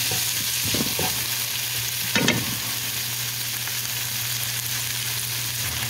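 Diced onions sizzling in oil and chicken drippings in a nonstick frying pan, a steady hiss. A wooden spatula stirs them with a few short scraping strokes, the clearest about two seconds in.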